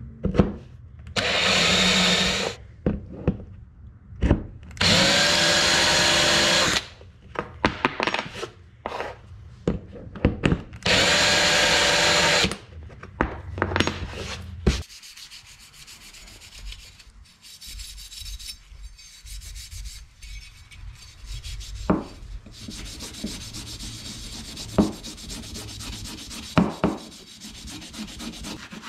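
Cordless drill run in three short bursts of about two seconds each, its bit cutting into a small aluminium bracket plate, with clicks and knocks of the metal parts being handled between bursts. From about halfway on, steady scratchy rubbing as the aluminium parts are scuffed with an abrasive pad before priming.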